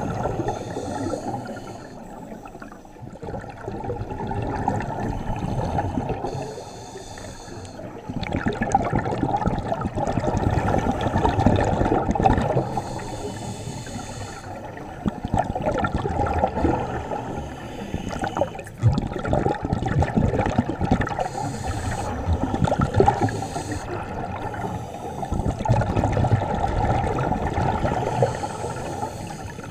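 Scuba diver breathing underwater through a regulator: a hiss on each inhale and a rush of bubbling on each exhale, repeating in a slow cycle every few seconds.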